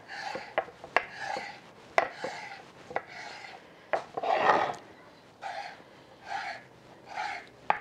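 Kitchen knife slicing thin beef steak on a wooden cutting board: repeated short sawing strokes, about two a second, with sharp taps as the blade meets the board, and one longer, louder stroke about four seconds in.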